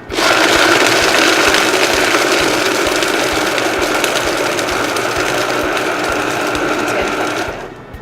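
Countertop blender running at speed, crushing ice with sweet potato, banana and milk into a smoothie; it starts abruptly and is switched off about seven and a half seconds in.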